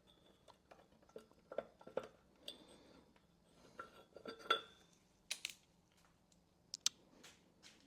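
Small metal parts and hand tools clinking and clicking while a chainsaw ignition coil is fitted: scattered light taps and clinks, with a few sharper clicks in the second half.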